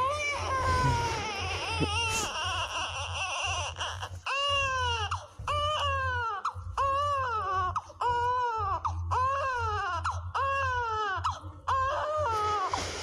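A baby crying: a long wavering wail for the first few seconds, then short rising-and-falling cries at about one a second, over a steady low hum.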